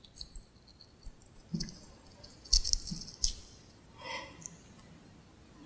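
Crisp flour-dredged fried mackerel pieces crackling and crunching softly as fingers break them open, several short crackles with the loudest about halfway through.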